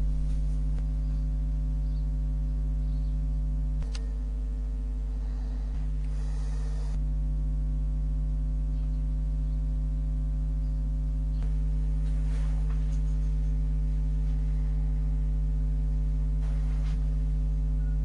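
A steady low drone made of several held tones, with no change in pitch, and a faint hiss drifting in and out over it a few times.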